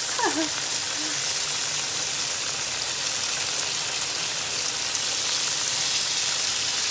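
Chicken pieces sizzling in butter in a nonstick frying pan: a steady, even hiss of frying.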